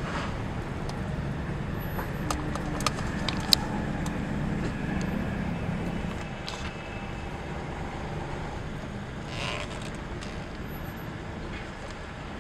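Steady engine and road noise heard from inside a moving car, with a few sharp clicks between about two and four seconds in.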